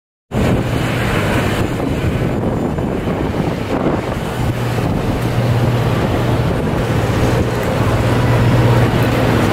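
Wind buffeting the microphone over a steady low hum of jet airliners on an airport apron; it starts suddenly about a third of a second in.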